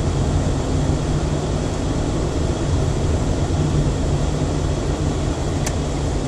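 Steady engine and road rumble heard from inside a moving car's cabin, driving at town speed.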